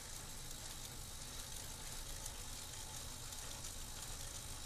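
Road bike's rear tyre spinning on an indoor trainer's roller as the rider pedals: a steady whir with a low hum.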